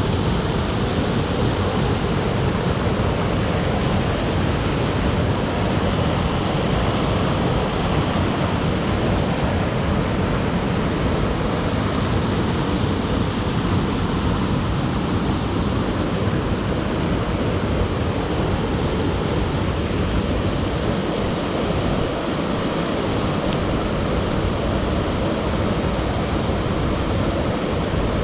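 Waterfall running full after heavy rain, heard close up as a loud, steady roar of falling water.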